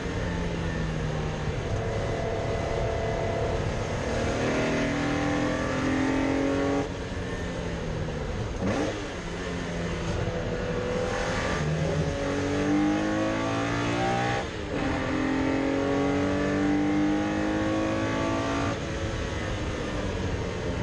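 Porsche 964 race car's air-cooled flat-six engine at racing speed, revving up repeatedly through the gears, with sharp lifts off the throttle twice, about 9 and 14 seconds in.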